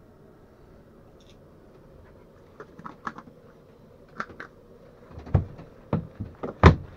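Scattered light clicks and knocks of a wooden locker door being opened and a jar being handled. They start about two and a half seconds in and grow louder near the end, where the sharpest knock falls.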